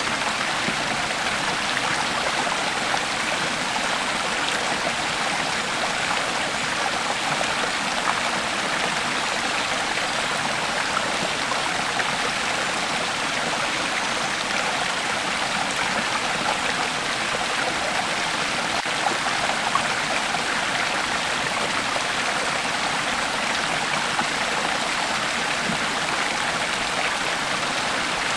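Creek water flowing steadily over rocks, a continuous rushing babble with small splashes and trickles.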